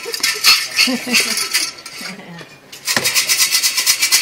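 Sticks rattling in metal omikuji boxes, with a brief scrape of a small wooden drawer. About three seconds in it turns to a fast, steady rattle.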